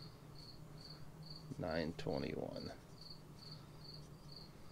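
A cricket chirping steadily, about two even chirps a second. A brief louder sound comes about two seconds in.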